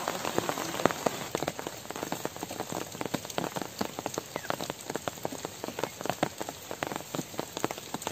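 Rain falling on a surface, a dense irregular patter of drops.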